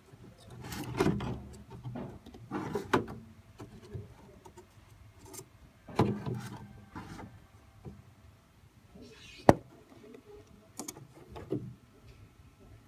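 Boards and panels of an opened LCD TV being handled: scattered knocks, scrapes and clicks, with a single sharp click about nine and a half seconds in.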